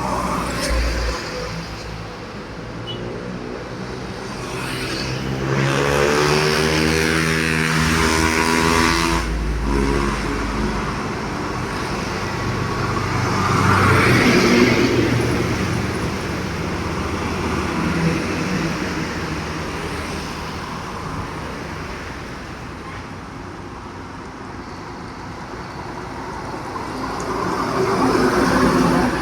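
Heavy dump trucks passing one after another, engine and tyre noise swelling and fading three times. The loudest pass is about 6 to 10 seconds in and carries a droning pitched sound that stops sharply near the 10-second mark.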